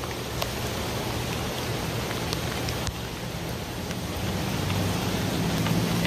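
Steady hiss of falling rain mixed with the rush of a flooded creek, with a few sharp raindrop ticks. A low steady hum grows stronger over the last second or two.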